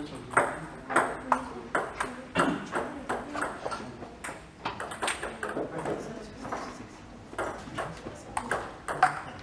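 Table tennis balls being struck by paddles and bouncing on the table: short, sharp ticks at an uneven pace, a few tenths of a second to about a second apart.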